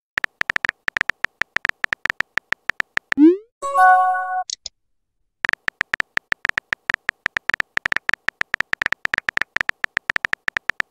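Chat-simulator phone keyboard typing clicks, quick and irregular, for about three seconds; then a short rising swoop and a brief electronic chime as a new message pops in; after a short pause, more rapid typing clicks.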